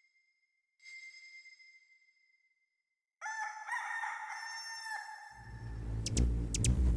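A small bell is struck once and rings out, then a rooster crows about three seconds in. Near the end a loud, deep low drone comes in with sharp ticks over it.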